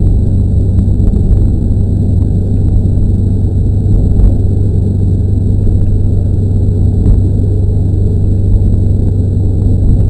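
KiHa 40 diesel railcar running along the line, heard from inside the cab: a steady low drone of the diesel engine and rumble of the wheels on the rails, with a few faint clicks.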